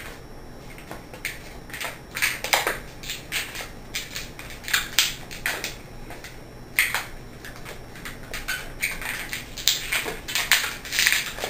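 A green latex modelling balloon squeaking and rubbing as it is twisted by hand into small one-finger bubbles with pinch twists. The squeaks come in irregular bursts, loudest near the end.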